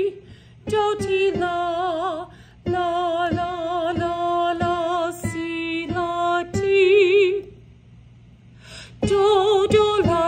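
A woman singing a choral alto line with vibrato, to notes struck on a piano, in phrases broken by short pauses, the longest about a second and a half near the end.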